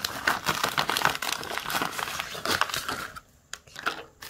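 A white paper packet of dried fruit slices and spices crinkling and rustling as a hand rummages inside it, dense for about three seconds and then dying down to a few small crackles.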